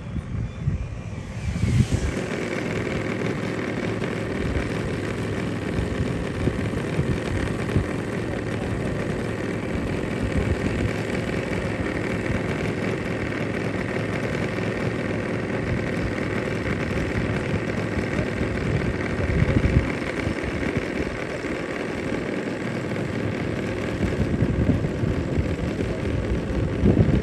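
A model airplane's propeller engine running at a steady pitch.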